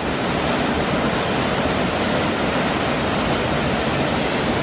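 Waterfall pouring over rock ledges into a pool below a ruined mill dam: a steady rush of falling water.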